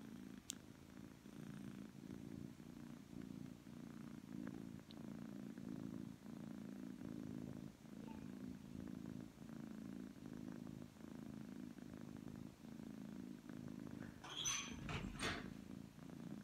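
Persian cat purring loudly and steadily, the purr swelling and easing in a slow rhythm with each breath, the sign of a relaxed, contented cat. Near the end come a couple of brief, louder rustles.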